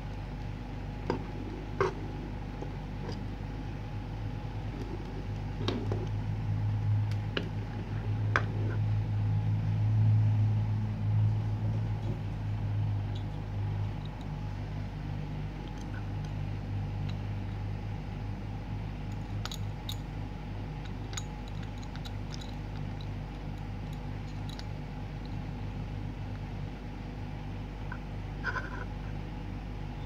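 Small clicks and ticks from alligator clips, leads and plastic parts being handled and connected, over a steady low hum that swells for several seconds in the middle.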